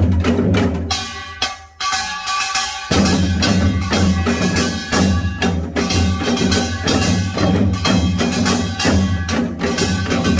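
Korean pungmul percussion playing a fast Yeongnam nongak rhythm: rapid metallic and drum strikes over a sustained low ringing. The playing thins briefly about a second in and comes back at full strength about three seconds in.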